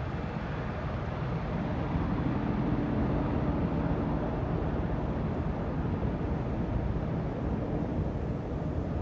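Boeing AH-64E Apache Guardian attack helicopter flying low, its rotor and twin turboshaft engines making a steady rumbling drone with a low hum, a little louder about two seconds in.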